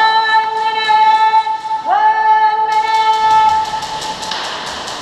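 A voice holding two long, high notes, each sliding sharply up at the start, the second beginning about two seconds in. Behind it, rapid clicks of airsoft guns firing.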